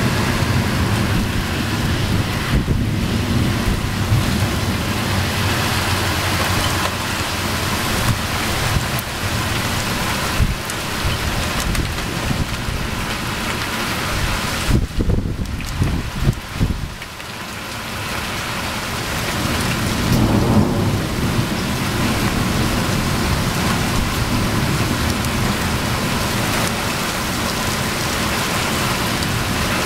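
Summer thunderstorm: steady rain with thunder rumbling underneath, easing briefly a little past the middle before swelling again.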